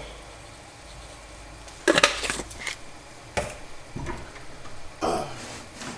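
Garlic salt shaker handled over a cooking pot: a short rattling clatter about two seconds in, then a couple of single knocks and a brief rustle near the end.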